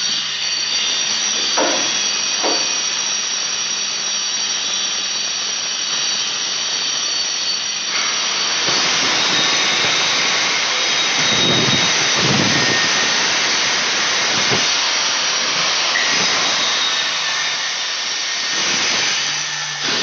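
Cutting machines screeching: a loud, steady hiss with high whining tones, growing louder and fuller about eight or nine seconds in.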